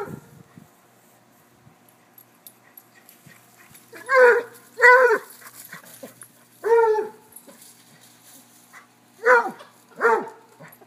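A dog barking in play, five loud barks. The first two come close together about four seconds in, one follows a couple of seconds later, and the last two come near the end.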